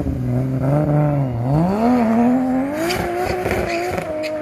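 Car engine accelerating: its pitch climbs about a second and a half in and then holds high, with a few sharp clicks near the end.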